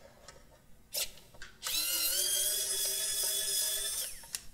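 Pen-style electric precision screwdriver whining steadily for about two and a half seconds as it backs out a small screw in a plastic toy's casing, after a short click about a second in.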